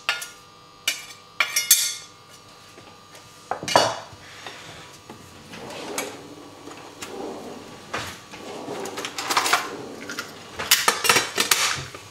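Sharp clinks and scrapes of metal kitchen utensils against a chef's knife blade and a frying pan, as minced onion, shallot and garlic are knocked off the knife into the pan. A few separate clinks come in the first seconds, and a denser run of clatter comes near the end.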